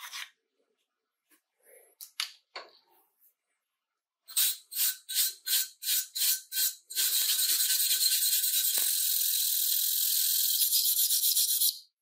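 A few light clicks of handling, then a hand file scraping across the steel windguard of a vintage petrol lighter: about eight separate strokes, roughly three a second, then fast continuous filing for about five seconds that stops abruptly near the end.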